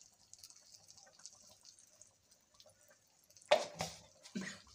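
Faint simmering of a pot of curry on the stove, with scattered small ticks and a light hiss. About three and a half seconds in comes one sharp, loud knock, followed by a few weaker ones.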